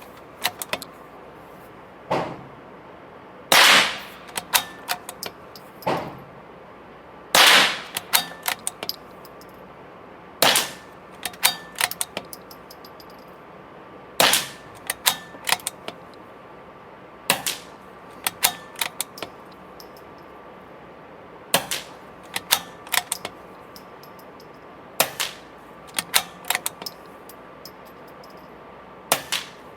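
Very quiet suppressed .22 rimfire shots from a bolt-action CZ 457 with a titanium suppressor, firing 420 ft/s subsonic ammunition. There are about eight sharp reports, roughly every three to four seconds, and each is followed by a quick run of small mechanical clicks as the bolt is worked to chamber the next round.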